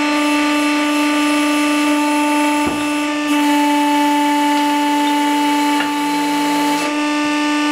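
Hydraulic press pump running with a steady, even-pitched whine while the ram pushes an old bearing out of an aluminum sprocket hub. Two faint clicks come through it, a little under three seconds in and again near six seconds.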